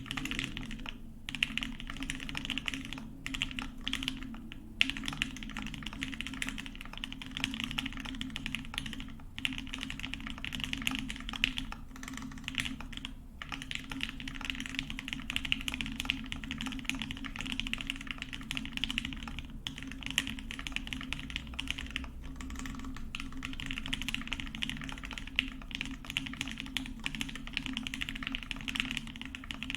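Continuous typing on a burger-mounted Meridian mechanical keyboard with filmed CannonKeys Lavender linear switches, an aluminium plate and GMK keycaps, broken by a few brief pauses.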